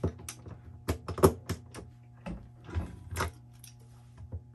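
Socket and ratchet wrench being worked on a nut on a battery bus bar: a handful of irregular metallic clicks and knocks, the loudest about a second in.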